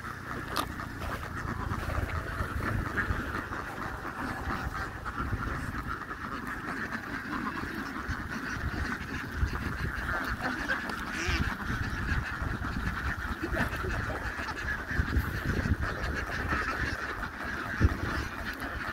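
A large flock of hundreds of domestic ducks quacking all at once in a dense, continuous chatter, with a low rumble underneath.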